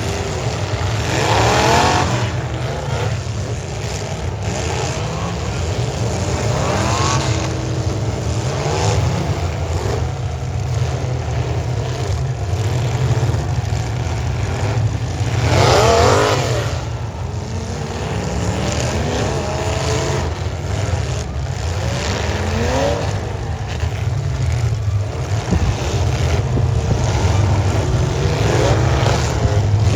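Demolition derby car engines running loud, with repeated revving that rises in pitch several times, the strongest rev about halfway through.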